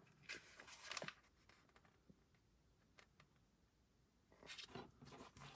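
Faint rustling and light clicks of LEGO set packaging being handled, in short bursts in the first second and again near the end, with a single soft tick in the quiet middle.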